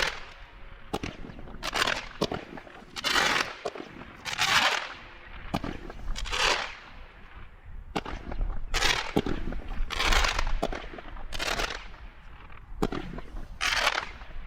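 Consumer fireworks cake firing shot after shot, about one every one and a half seconds. Each shot is a sharp report with a short hissing, crackling tail.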